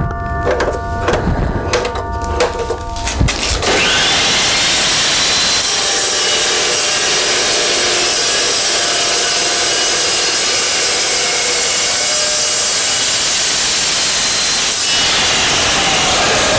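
Evolution Rage 2 multipurpose chop saw cutting steel: after some quieter clatter, a loud, steady cutting noise starts suddenly a few seconds in and keeps on.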